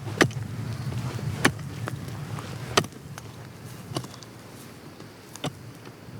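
Five sharp knocks, one about every second and a half, over a low steady rumble that fades out about three seconds in.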